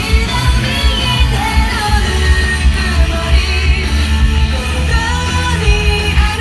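Live rock music played loud through a PA: a pounding bass-heavy beat with a singer's voice over it.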